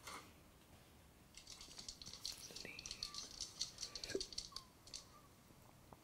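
Faint, rapid shaker-like rattling with a few short high squeaks, starting about a second and a half in and stopping near the end. It comes quietly from the music video's soundtrack playing through laptop speakers.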